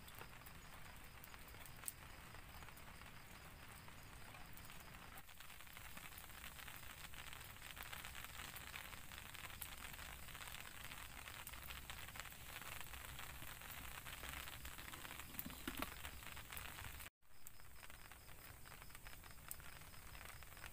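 Faint crackling of a wood campfire, with small pops, over a faint high steady pulsing tone. The sound cuts out for an instant about three-quarters of the way through.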